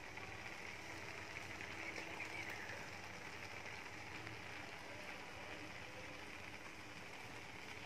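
Faint, steady sizzle of egg bhurji frying in a kadhai.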